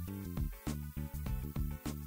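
Instrumental background music with evenly spaced notes.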